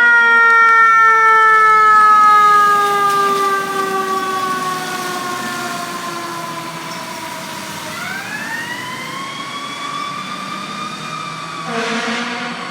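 Fire truck siren winding down slowly over about eight seconds, then winding back up, with a short air horn blast near the end. The siren grows fainter as the apparatus moves off.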